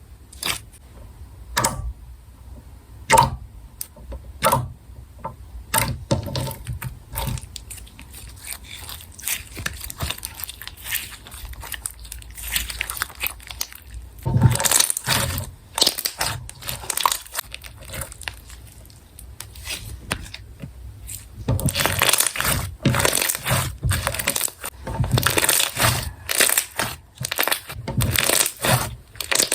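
Clear slime made with Elmer's glue being squished and stretched by hand, giving sticky clicks and pops. They are scattered at first, then turn into a dense, continuous crackle for the last third.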